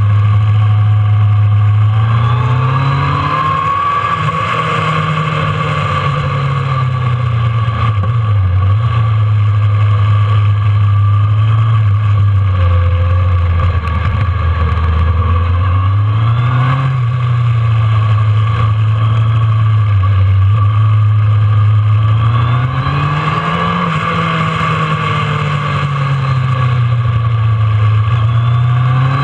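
Kawasaki ZRX1200's inline-four engine heard onboard while riding: it pulls up through the revs three times, near the start, about midway and again later, and settles back to a lower steady run between pulls.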